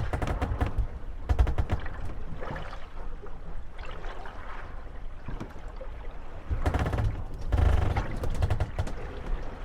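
Moored gondolas rocking on the waves, their wooden hulls knocking and creaking against each other over lapping water. Rapid rattling runs of knocks come near the start and again about two-thirds of the way through.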